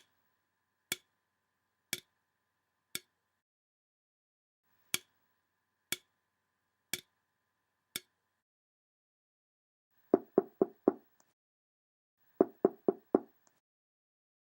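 Foley clock ticking: two runs of four sharp ticks, one a second, with a short pause between. Then two groups of four quick, deeper knocks, like knuckles rapping on a door.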